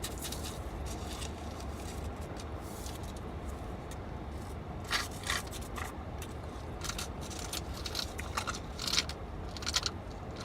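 Spoon scraping and clicking against a cup of shaved ice, several short scrapes mostly in the second half, over a low steady hum.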